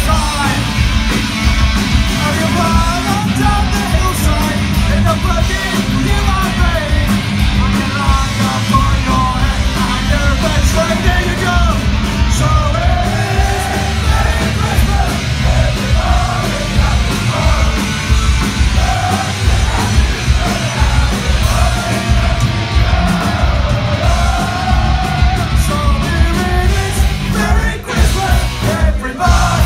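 Live thrash metal band playing loud, with distorted electric guitars and shouted vocals, picked up from within the crowd. The sound breaks off sharply a couple of times near the end.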